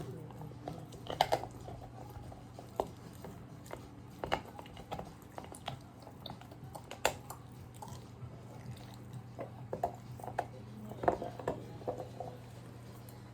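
Rottweiler gnawing on a chew toy: irregular wet chewing with scattered clicks and crunches of teeth on the toy, coming in clusters with pauses between.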